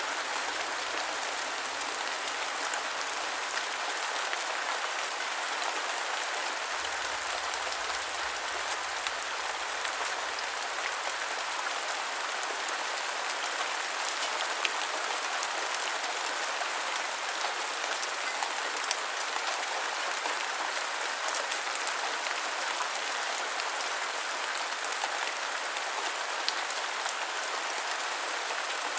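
Steady rain falling on a surface, with scattered individual drop ticks.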